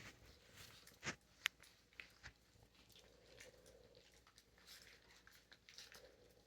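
Faint wet clicks and smacks of Rhodesian Ridgeback puppies chewing and lapping food, with a couple of sharper clicks about a second in.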